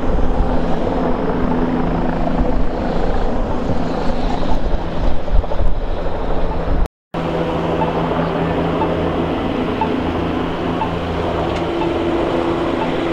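Steady engine drone with wind buffeting the microphone. About seven seconds in the sound cuts briefly, then the drone carries on with faint regular ticks.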